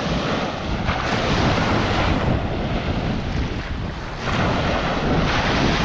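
Surf washing up the beach in several surges, with wind buffeting the microphone.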